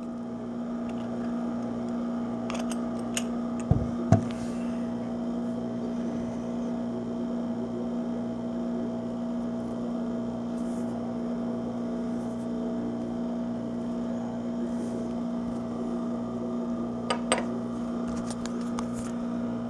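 A steady electrical hum with a slight regular throb, with a few sharp plastic clicks and taps about three to four seconds in as a plastic tube of silver bullion coins is opened, and a couple more near the end as a silver coin is handled and set down on a wooden table.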